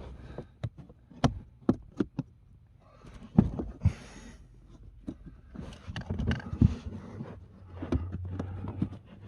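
Hard plastic clicks, knocks and rustling from a Ford C-Max Hybrid's cabin air filter cover and housing being pushed and fiddled with, as it is tried shut but will not fully close. The clicks come singly and irregularly, with short bursts of scraping in between.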